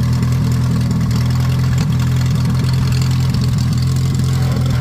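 Opel truck engine idling steadily.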